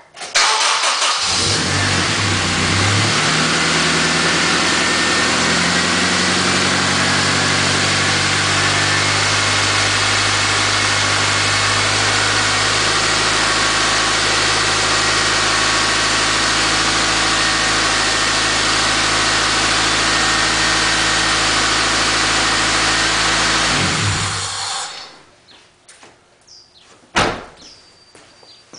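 Car engine started, catching at once; its idle settles lower over the first several seconds, then runs steadily for about twenty seconds before being switched off and winding down.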